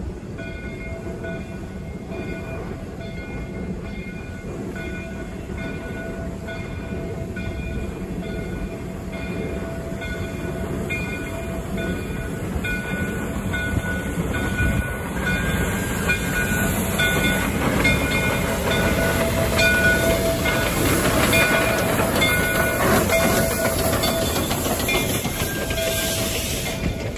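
Steam locomotive approaching and passing slowly, its bell ringing steadily in an even rhythm. The rumble of the engine and train grows loudest as the locomotive goes by, then the passenger cars roll past with wheels clattering over the rail joints.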